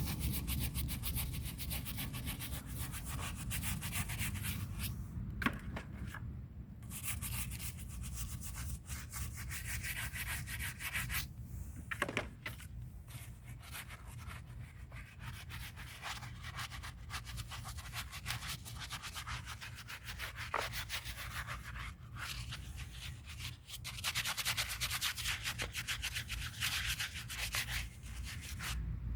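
A brush scrubbing the dirty surface of an old concrete bird bath, in long runs of rapid back-and-forth strokes with a few short pauses, over a steady low hum.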